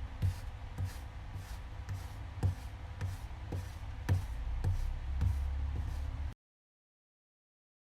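Footsteps walking at about two steps a second over a low steady rumble, stopping abruptly about six seconds in.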